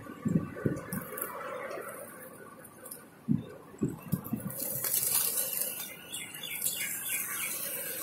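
A large flock of feral pigeons feeding and flapping, with short fluttering wing thumps about a third of a second in, around three seconds and about four seconds in, and a rustle of many wings in the middle.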